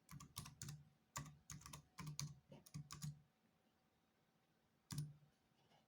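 Typing on an HP 630 laptop's keyboard: a quick run of keystrokes for about three seconds, then a single key press near the end.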